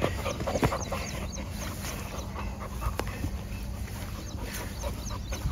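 Labrador puppies panting after an hour of play.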